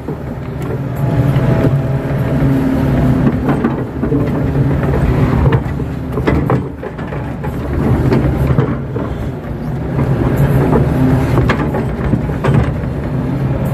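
Kato tracked excavator's diesel engine running steadily under load, heard from inside the cab, while the boom and bucket work. Several clunks and knocks are spread through it as the bucket scrapes up and dumps wet mud.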